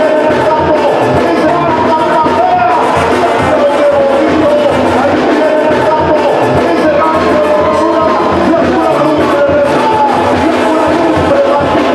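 Loud music with a melody line moving continuously.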